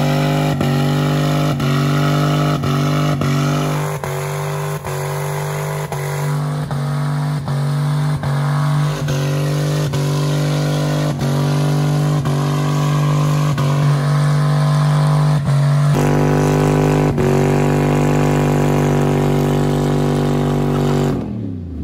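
Dodge Dakota V8 held at steady high revs in a burnout, the rear tyres spinning against the pavement. Near the end the revs fall away.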